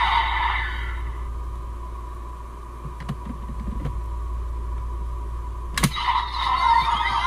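Hard plastic clicks from the DX Desire Driver toy belt as a red buckle, the Boost Raise Buckle, is fitted to its right side: a few small clicks, then one sharp snap a little before six seconds in as it locks into place. The belt's electronic sound effects fade out in the first second and start again right after the snap.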